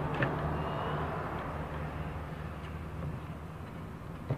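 Steady low background hum and rumble, with a few light clicks about a quarter second in from wires and a connector being handled.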